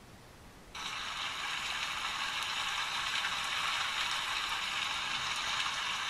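Recorded rain played by a nature-sounds app through a phone's small speaker: a steady hiss of falling rain that switches on abruptly less than a second in, thin with no low end.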